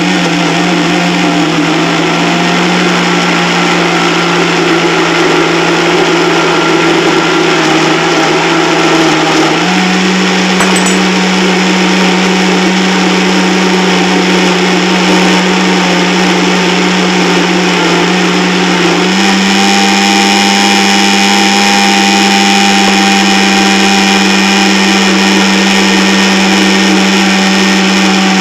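Vitamix blender running steadily, blending frozen bananas and water into a thick smoothie. The motor's pitch steps up suddenly about ten seconds in and again a little before twenty seconds.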